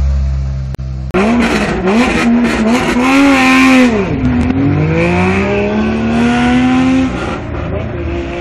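Historic rally car leaving the stage start: the engine idles low, then revs hard about a second in and accelerates away. The pitch climbs and drops twice, around four and seven seconds in, at the gear changes.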